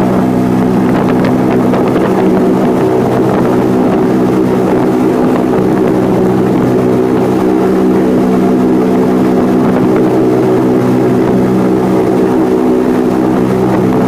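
Spirit of Goodyear blimp's engines and propellers in flight, heard inside the gondola as a loud, steady drone that holds one pitch.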